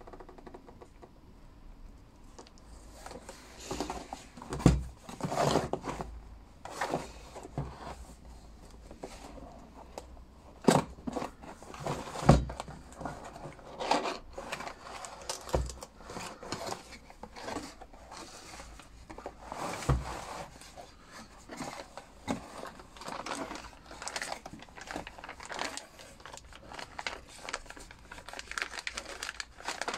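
Unboxing a cardboard box by hand: scattered knocks and thumps as the box is handled and its flaps opened, with rustling and crinkling of plastic packaging.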